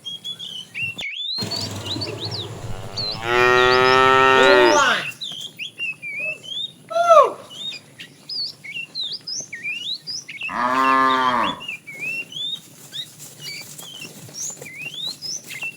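Cattle mooing: a long moo about three seconds in, a short call falling in pitch near seven seconds, and another moo about ten seconds in. Small birds chirp throughout.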